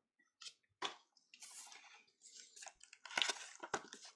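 Crinkling and rustling of a foil trading card pack as gloved hands handle it and start tearing it open, in short irregular crackles that grow louder about three seconds in.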